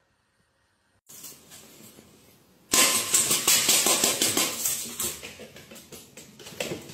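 Dry cat food rattling in a stainless steel bowl: a dense, crackly rattle that starts suddenly about three seconds in and fades off.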